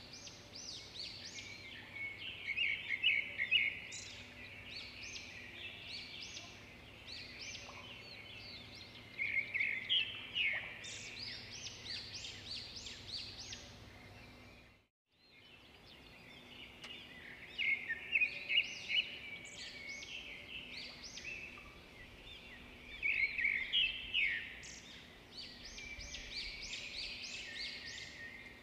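Small birds chirping and twittering in quick runs of short, high chirps, over a faint steady hum. The sound cuts out completely for a moment about halfway through.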